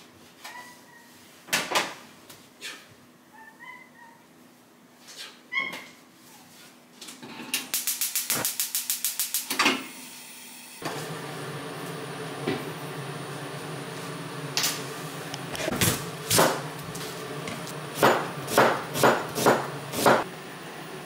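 Gas hob igniter clicking rapidly for about two seconds, then the lit burner running with a steady rushing hum. Near the end, a kitchen knife chops an onion on a plastic cutting board, about five sharp strokes half a second apart.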